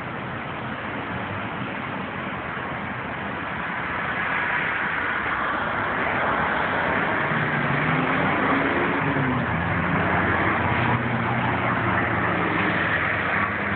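Street traffic: the steady noise of a motor vehicle's engine and tyres, growing louder from about four seconds in.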